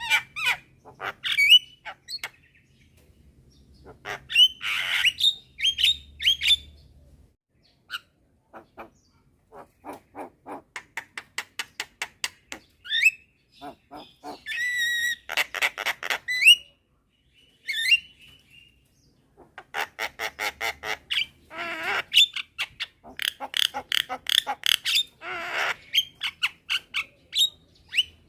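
Javan mynas calling: harsh chattering squawks, quick runs of repeated sharp notes and short whistled glides, several birds answering one another.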